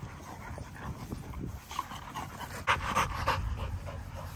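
A pack of XL American Bully dogs at rough play, panting and scuffling, with a louder flurry about three seconds in.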